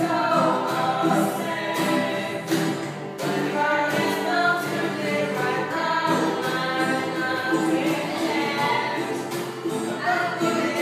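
A small mixed group of men and women singing a pop song together, accompanied by strummed acoustic guitars and a ukulele.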